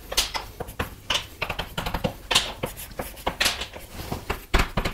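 An equation being written by hand: quick, irregular taps and scratching strokes of a writing tool on the writing surface.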